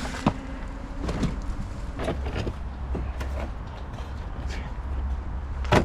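Car bumper being pulled free of the body: scattered knocks, clicks and scrapes, with a louder knock just before the end.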